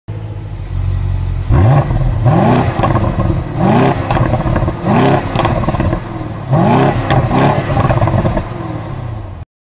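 Car engine idling with a low rumble, then revved in about six short blips, each a quick rise in pitch. It cuts off suddenly near the end.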